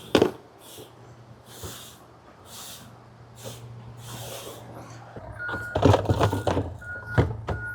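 A truck's reversing beeper starts about five seconds in, a steady beep repeating about twice a second over a low engine hum, with some loud knocks and clatter. Before that, soft rhythmic swishes come about once a second.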